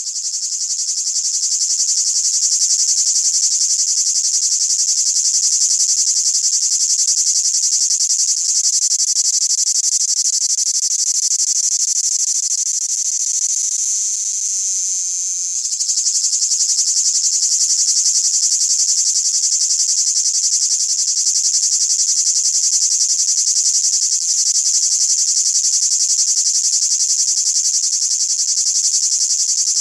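Cicada calling: a continuous, high, shrill buzz with a fast pulsing texture. It softens slightly just before the halfway point, then snaps back to full strength.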